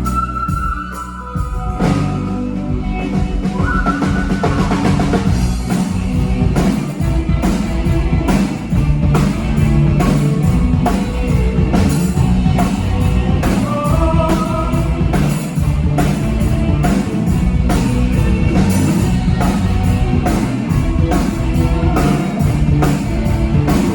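Rock band playing: a drum kit keeps a steady beat under guitar and held notes, with a thinner, quieter opening of about two seconds before the full band comes in.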